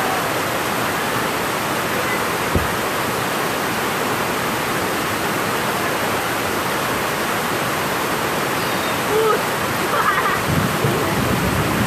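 Heavy rain falling in a steady hiss during a thunderstorm. A low rumble of thunder begins to build near the end.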